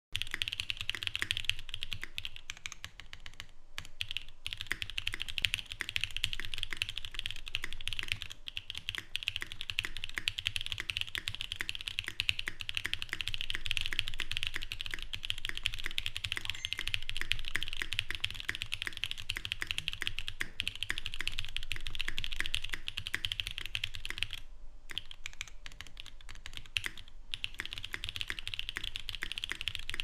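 Continuous fast typing on a plateless 7v custom mechanical keyboard with lubed, filmed Cobalt POM linear switches and GMK doubleshot ABS keycaps: a dense stream of key clacks with spacebar strikes mixed in. The typing breaks off briefly about four seconds in and twice near the end.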